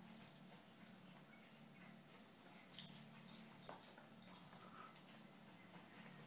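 Two dogs play-wrestling on a rug: soft scuffling and a cluster of light clicks in the middle, with one short whine from a dog about three and a half seconds in.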